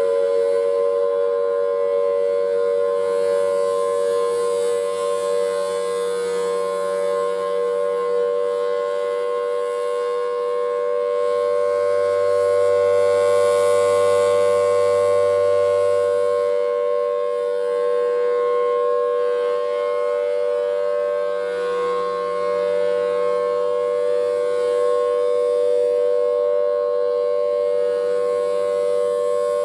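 Siren sounding one long steady tone: a dissonant chord of two close pitches with many overtones, held level without winding up or down, swelling slightly louder midway.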